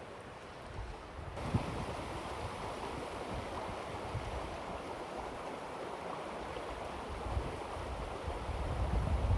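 Creek water rushing steadily, becoming suddenly louder about a second and a half in. Wind buffets the microphone near the end.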